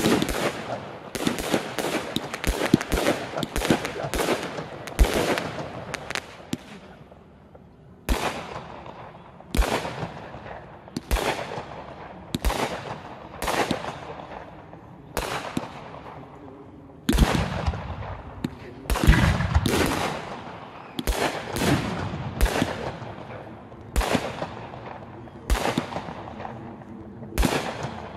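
Aerial fireworks shells bursting: a rapid volley of bangs for the first several seconds, then single bangs every second or so, each trailing off in an echo.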